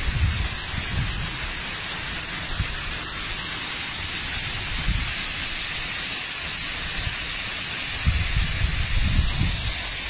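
Steady rushing and splashing of water cascading down a mountain stream and waterfall, with irregular low buffeting on the microphone, heaviest near the end.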